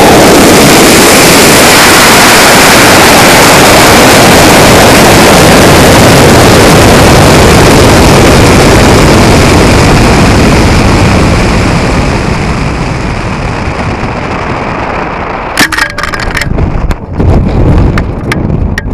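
Loud, steady rushing roar on a high-power rocket booster in flight: the end of the Loki M2550 motor's burn, then air rushing past the airframe as the booster coasts upward at high speed. The roar slowly fades from about ten seconds in as the booster slows. Near the end come irregular knocks and gusts of buffeting wind.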